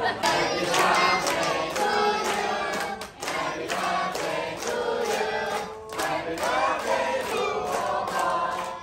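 A group of people singing together in chorus, in phrases broken by short pauses, with hand-clapping along.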